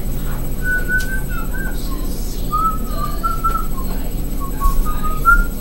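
A person whistling a wandering tune, a string of short held notes stepping up and down in pitch, over a steady low hum, with a couple of soft bumps near the end.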